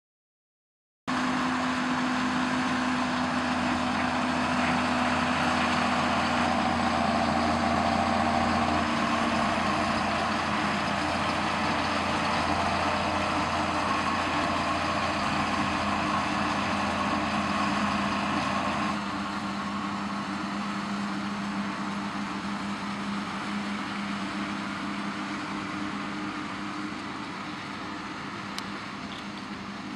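John Deere tractor running steadily while pulling a Lely Welger RPC 445 Tornado baler-wrapper through a silage field: a constant engine drone mixed with the baler's mechanical noise. The sound starts abruptly about a second in and gets somewhat quieter about two-thirds of the way through.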